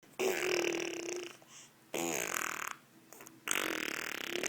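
A baby blowing raspberries, buzzing her tongue against her lips to make fart-like sounds, three times with short pauses between.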